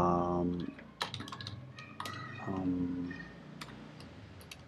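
Typing on a computer keyboard: a run of separate key clicks starting about a second in.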